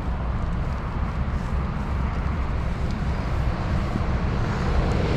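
Road traffic passing on a highway, including a lorry, over a steady low rumble.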